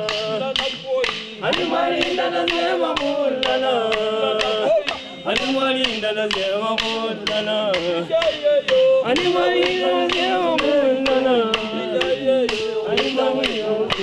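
Music: several voices singing together over a steady beat of sharp strokes, about three a second.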